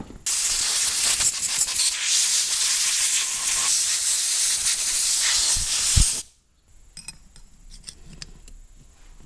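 Aerosol carburetor cleaner spraying into a small-engine carburetor: a steady hiss that cuts off suddenly about six seconds in. After it come a few faint clicks and taps.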